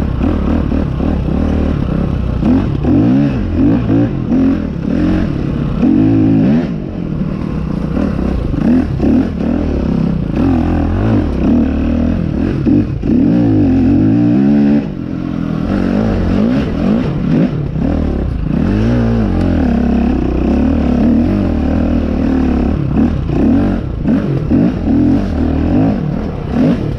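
Dirt bike engine being ridden hard on a trail, its pitch rising and falling again and again with the throttle, easing off briefly about seven and fifteen seconds in. Clattering from the bike runs under the engine.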